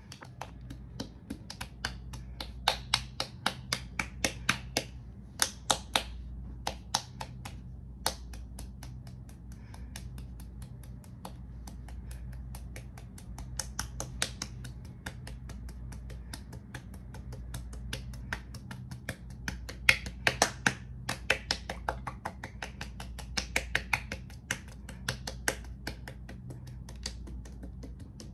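Quick runs of sharp, light clicks, several a second, with pauses between runs, over a low steady hum.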